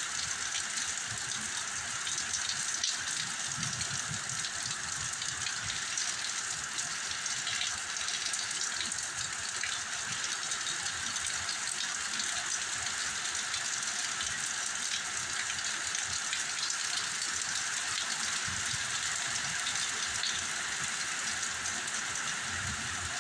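Heavy rain falling steadily in a windstorm, a constant hiss of rain, with low gusts of wind rumbling on the microphone now and then.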